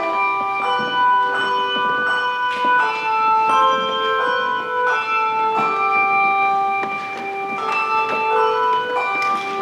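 A handbell choir playing a tune: tuned brass handbells struck in melody notes and chords, each note ringing on and overlapping the next.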